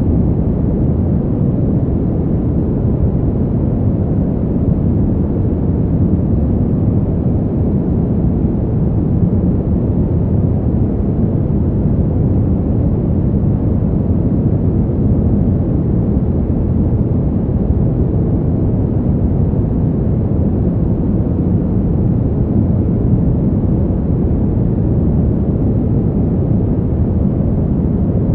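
Brown noise: a steady, deep rumbling hiss with most of its energy in the low end and almost nothing above the upper midrange, unchanging in level.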